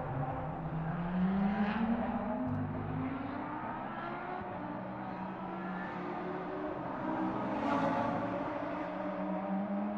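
Race car engines running at speed, several at once, one rising in pitch as it accelerates, with cars swelling past about two seconds in and again near the end.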